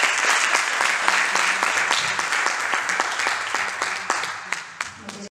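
Audience applauding, a dense crackle of many hands clapping that thins out over the last second and then cuts off abruptly.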